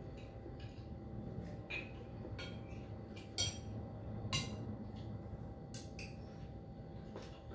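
Spoon and fork clinking and scraping against a bowl while eating: a string of light clicks, the two loudest about three and a half and four and a half seconds in.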